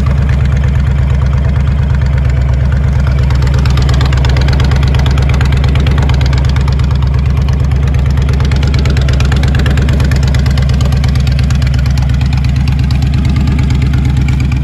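Honda VTX1300C's V-twin engine idling steadily, loud, with an even pulsing rhythm.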